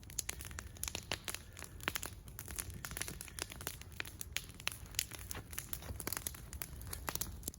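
Wood campfire crackling: firewood burning with irregular sharp snaps and pops.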